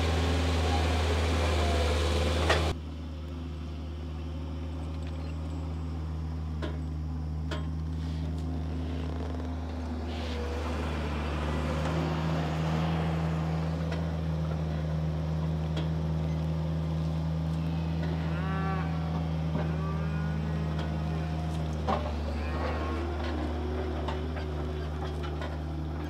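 Engine of a front loader carrying a round hay bale, running steadily; it revs up about 11 seconds in and settles back near the end.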